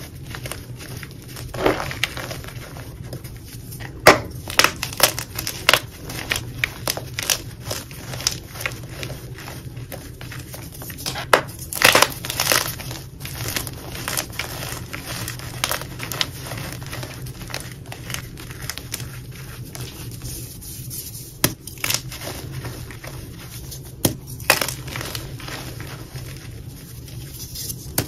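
Dyed gym chalk blocks and cornstarch powder crushed and crumbled between the fingers in a bowl: an irregular run of crunching and crackling with a few louder sharp snaps, over a steady low hum.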